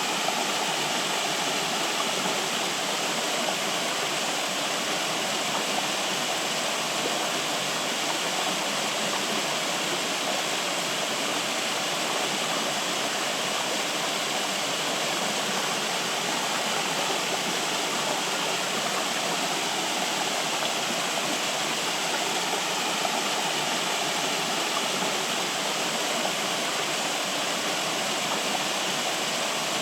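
Flowing water, a steady even rush with no changes in level.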